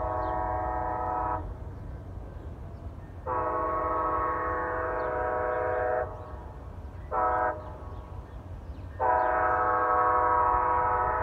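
Amtrak ALC-42 Charger locomotive's horn sounding a chord in the grade-crossing pattern. A long blast ends about a second in, followed by another long blast, a short one and a final long one: long, long, short, long.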